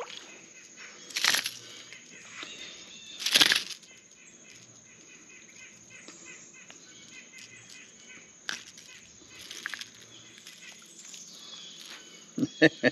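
A small largemouth bass flapping and shaking while held out of the water, in two short, loud flurries, about one second and three and a half seconds in.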